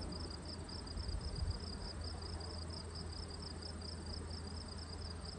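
A cricket chirping steadily, about four to five pulses a second, over a low rumble. There is a faint soft knock about a second and a half in.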